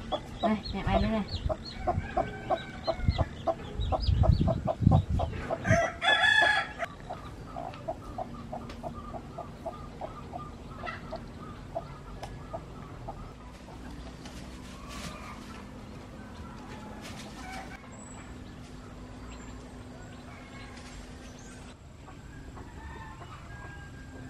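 Chickens clucking in a rapid, even run of short clucks that slows and fades after about eight seconds, with a rooster crowing about six seconds in. A few low thuds come around four seconds in.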